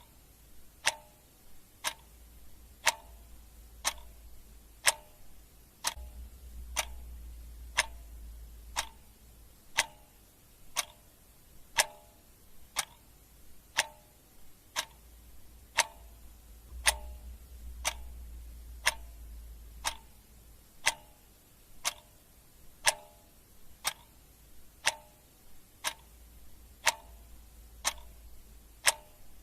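Clock ticking steadily, about one tick a second, over a faint low rumble.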